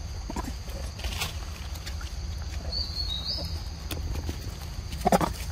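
Forest ambience: a steady high-pitched insect drone over a low rumble, with a couple of short bird chirps about three seconds in and a few soft knocks. The loudest is a short thump near the end.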